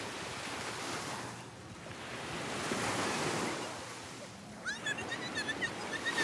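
Ocean surf washing on a beach, swelling and ebbing in slow surges. Near the end, birds give a rapid run of short high chirps.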